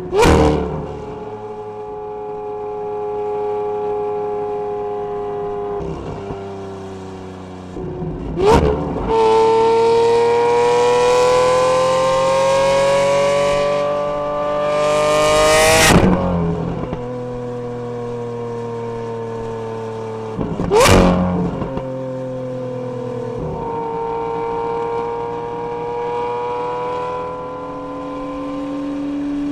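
Lamborghini Aventador SV's V12 engine running at speed. Its pitch climbs slowly for several seconds midway, then holds. Sharp cracks cut through about four times.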